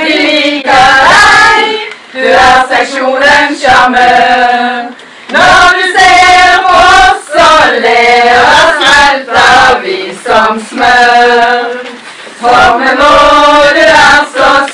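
A group of women singing a song together, in phrases broken by short breaths.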